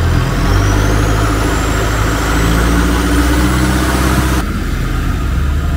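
Motorboat engine running steadily with a low, even drone, its sound shifting slightly about four seconds in.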